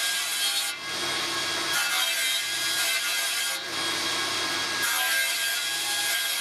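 Table saw ripping the corners off beech leg blanks to make them eight-sided, the blade running steadily and the cutting noise changing as successive passes are pushed through.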